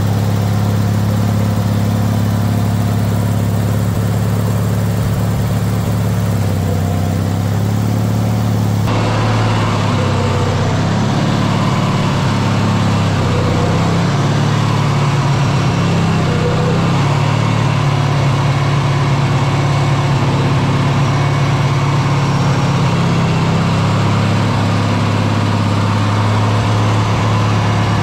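Lawn Chief garden tractor's Briggs & Stratton engine running steadily as the tractor is driven, its tone changing abruptly about nine seconds in.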